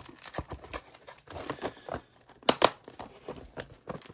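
Packaging crinkling and rustling as items are handled and taken out of a box, with two sharper clicks close together about two and a half seconds in.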